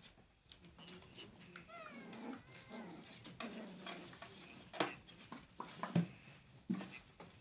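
Australian silky terrier puppies squeaking and whining, with a run of high, wavering cries about two seconds in. Sharp knocks and scratches of paws against the wooden box, the loudest near the end.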